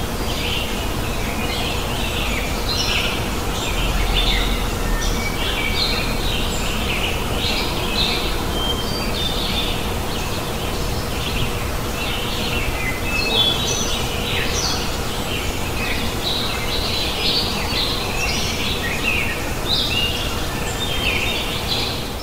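Many small birds chirping and trilling without a break, over a steady low outdoor noise floor with a faint steady hum.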